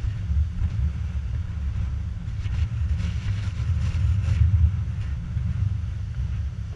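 Wind buffeting the microphone as a heavy, fluttering low rumble, with waves breaking on the rocks faintly behind it. The surf hiss swells a little in the middle.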